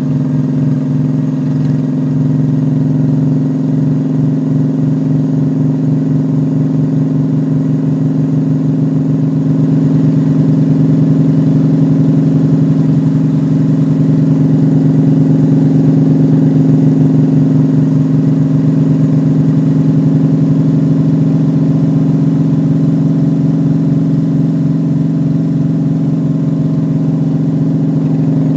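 Honda Shadow V-twin motorcycle engine running steadily under way, a constant low note with an even pulse and no change in pitch.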